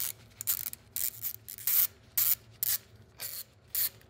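Small hand ratchet clicking in short bursts, about two a second, as it backs out the tiny Allen screws of a manual locking hub.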